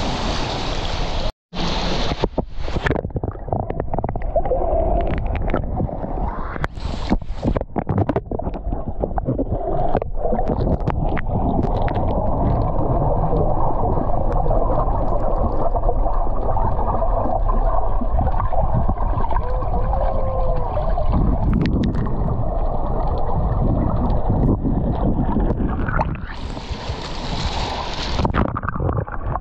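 Water sloshing and splashing around the camera at the surface in the first few seconds and again near the end, with a steady, dull, muffled underwater rush in between while it is submerged.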